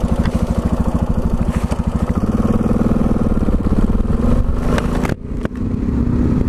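Yamaha XT 660 Z Ténéré's single-cylinder four-stroke engine under way on a gravel road, with a steady, fast thumping beat. The sound dips sharply for a moment just after five seconds in, then picks up again.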